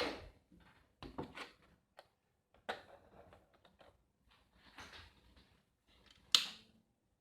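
Stock, unlubed Gateron Milky Yellow linear mechanical switch pressed and released several times at uneven intervals, giving short plastic clacks with a scratchy feel. The loudest clack comes near the end.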